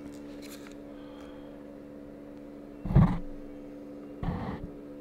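Steady low hum of a few even tones, with a short loud sound about three seconds in and a shorter, weaker pulsing sound just over a second later.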